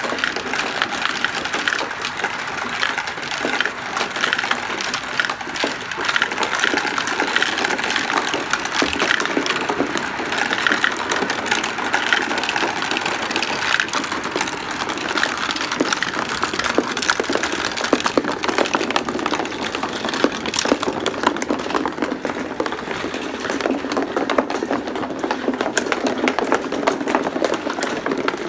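Many marbles spinning round the clear plastic funnels of a marble run and rolling through its plastic tubes and tracks: a continuous rolling whirr with dense, rapid clicking and rattling as the marbles knock against each other and the plastic.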